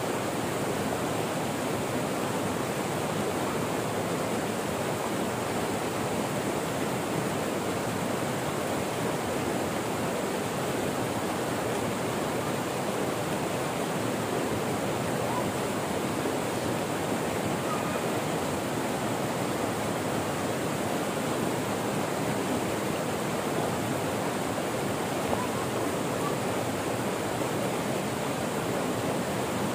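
Steady rushing of flowing water, an even hiss-like noise that does not change.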